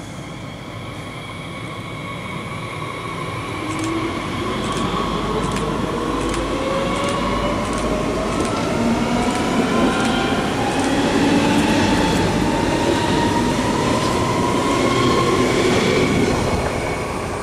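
Electric S-Bahn multiple unit pulling away and accelerating past at close range: its motor whine climbs steadily in pitch, with evenly spaced wheel clicks over the rail joints. It gets louder as the cars pass and eases off near the end as the last car goes by.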